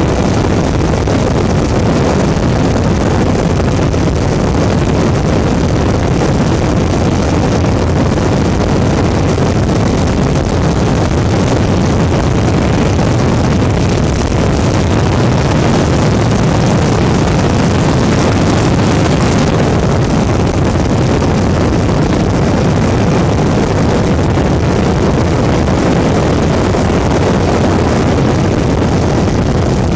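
Weedhopper ultralight's engine and propeller running steadily in flight, with wind rushing over the microphone.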